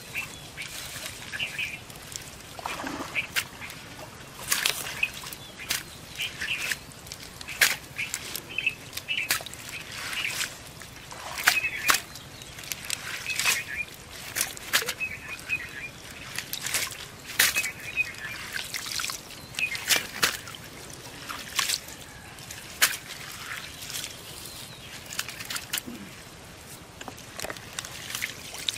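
Water trickling and dripping through a hand net heaped with wet pond weed, with irregular sharp clicks and small splashes all through, and short bird calls in the background.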